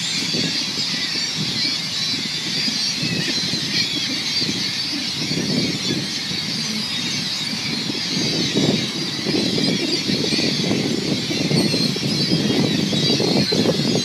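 A large flock of gulls calling all at once over dumped bread: a dense, unbroken chorus of overlapping squealing cries. A low rumbling noise runs underneath and grows stronger in the second half.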